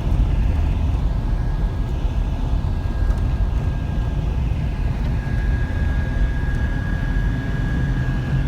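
Steady low rumble of a vehicle running, as heard from inside a moving car or van, with a thin steady high whine that grows stronger about halfway through.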